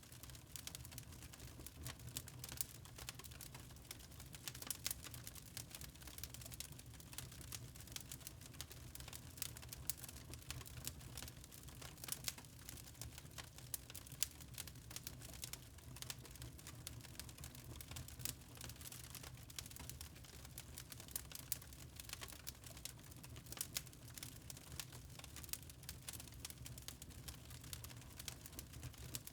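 Fire crackling in a fireplace: irregular sharp pops and snaps, several a second, over a steady low rumble.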